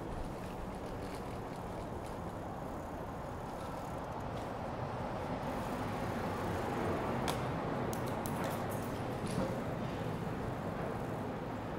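City street traffic noise heard from a moving bicycle: a steady rushing wash that swells a little in the middle, with a few short light clicks about two-thirds of the way through.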